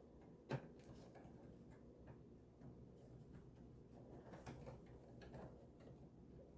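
Near-silent room tone with a few faint, irregular clicks and taps of plastic model-kit parts being handled and fitted together, the clearest about half a second in.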